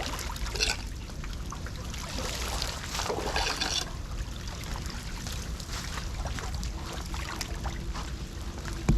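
Floodwater trickling and splashing at a street drain, with a steady low rumble underneath.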